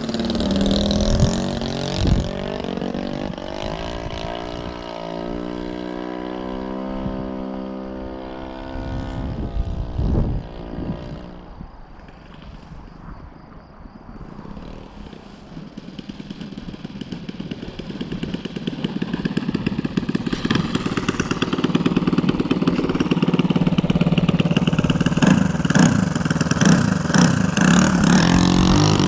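Saito FG-21 single-cylinder four-stroke petrol engine of a radio-controlled Cub model, running without a muffler. Its pitch drops as the plane passes overhead, then the engine is throttled back to a low idle about ten seconds in for the landing. It grows steadily louder as the plane taxis up close, its individual exhaust pops coming through plainly.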